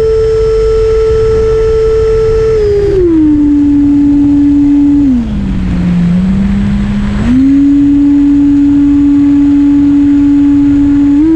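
Onboard sound of a Freewing Stinger 64mm electric ducted fan jet running on 4S: the fan's steady whine drops in pitch in steps as the throttle is eased back, sits lowest for about two seconds while a hiss of air rises, then steps back up and climbs again near the end. Constant wind rumble on the tail-mounted camera underneath.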